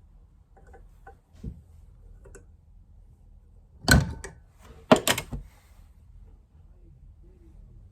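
Knocks while fitting parts of a bench vise being reassembled: a few light clicks, then a loud sharp knock about four seconds in and two more about a second later.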